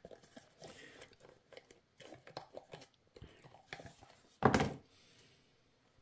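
Cards and cardboard or paper box contents being handled: light rustles and small taps, with one louder rustling scrape about four and a half seconds in.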